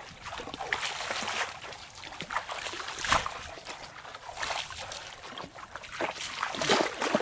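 Footsteps wading through ankle-deep water and mud in a flooded rice paddy, each step a splash and slosh, coming irregularly about once a second.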